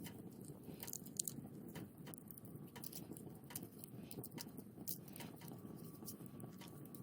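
Wood fire burning with a steady low rush and irregular sharp crackles and pops.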